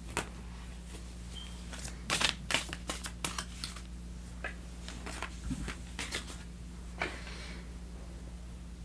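Tarot cards being handled and gathered up off a velvet-covered table: a run of light card taps and flicks, busiest about two to three and a half seconds in, with a few more later, over a steady low hum.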